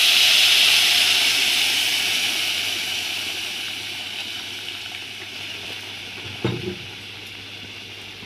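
Boiling water poured from a kettle onto rice in a hot pot, hissing and sizzling as it hits, loud at first and slowly dying down.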